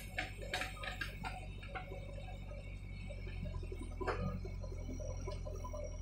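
JCB 3DX backhoe loader's diesel engine running steadily while the rear bucket digs into soil, with a run of clanks and knocks in the first couple of seconds and a sharp one about four seconds in.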